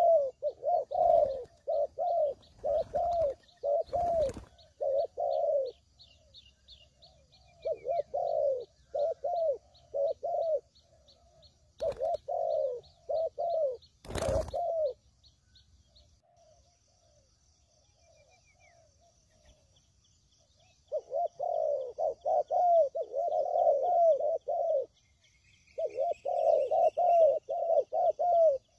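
Spotted doves cooing in repeated phrases, with pauses between the phrase groups, over a faint high insect trill and a few sharp knocks.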